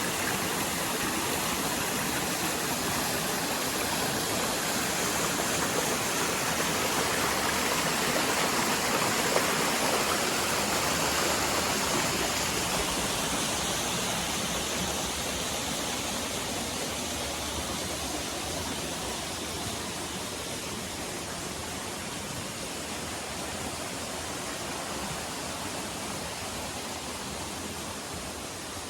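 Waterfall rushing with a steady noise of falling water, loudest about ten seconds in and then slowly growing quieter.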